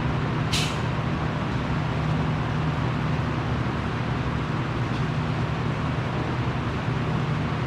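Steady low mechanical hum and rushing noise of running shop machinery, with a brief sharp hiss about half a second in.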